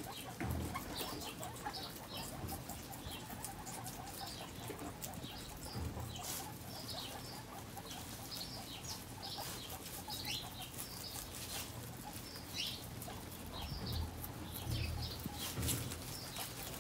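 Guinea pigs feeding on fresh-cut grass: rustling and chewing of the blades, with short high squeaks repeated every half second to a second throughout.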